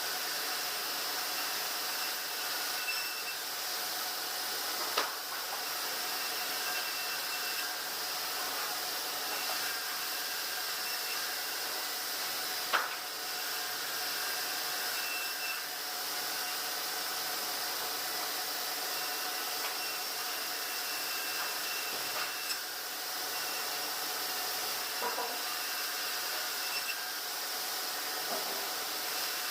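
Steady whirring hiss of sawmill machinery running, with faint steady hums and an on-off whine, broken twice by a sharp knock.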